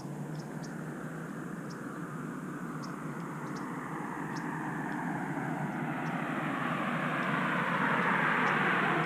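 FPV quadcopter's DYS Samguk brushless motors buzzing in flight, rising in pitch and getting louder over the last few seconds as the throttle comes up. It is a weird buzzing that the pilot takes for something amiss with the motors.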